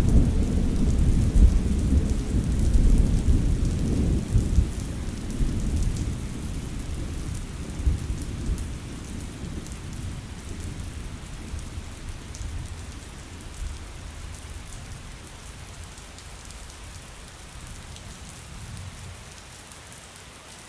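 Steady rain with a long roll of thunder that rumbles loudest in the first few seconds and slowly dies away, leaving the even hiss and patter of the rain.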